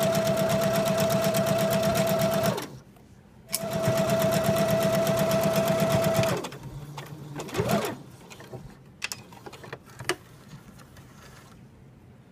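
Domestic electric sewing machine sewing a straight-stitch seam: a steady motor whine over a fast, even needle rhythm. It stops about two and a half seconds in, starts again about a second later, and stops for good a little after halfway. Light clicks and fabric handling follow.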